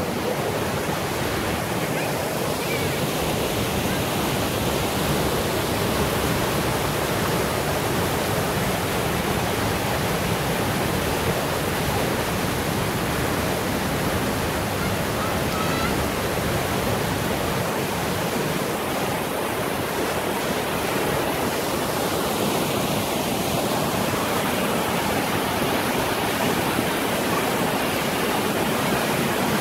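Waterfall pouring over a rock ledge into a shallow stream: a steady, unbroken rush of falling water.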